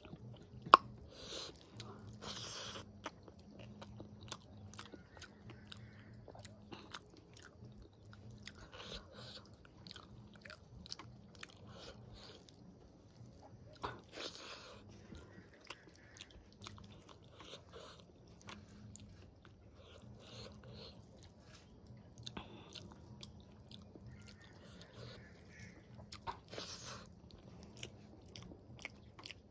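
Close-miked eating: chewing and wet mouth sounds of handfuls of rice, dal and vegetable curry, with scattered short clicks and a few brief crunches. A single sharp click stands out about a second in.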